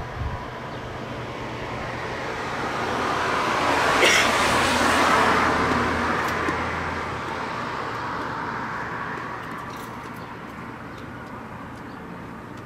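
A road vehicle drives past, growing louder to a peak about four seconds in and then fading away.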